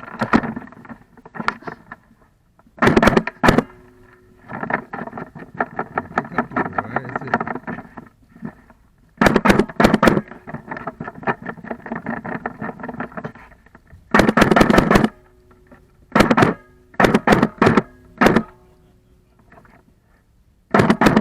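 Airsoft electric guns firing in short bursts of rapid shots, each burst a fast run of clicks over a motor-and-gearbox whine. There are several bursts, the longest about a second, spaced irregularly.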